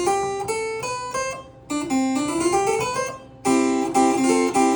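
Sperrhake Passau harpsichord being played: two quick rising runs of plucked notes, a brief break, then repeated full chords near the end.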